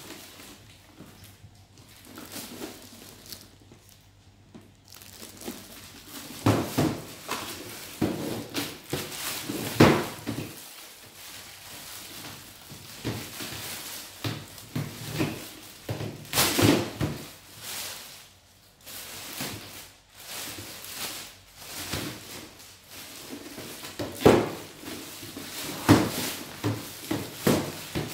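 Unpacking a plastic drawer cabinet: plastic wrapping crinkling and rustling, with irregular knocks and clunks of hard plastic parts being handled.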